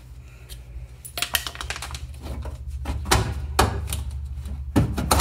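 Irregular clatter and knocking of metal parts as a jammed air filter canister is worked loose and pulled out, with a few louder knocks in the second half, over a steady low hum.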